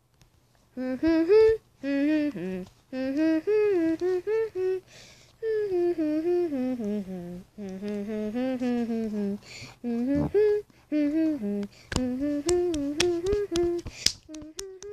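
A person humming a wavering tune in short phrases, without words. Sharp clicks join in near the end.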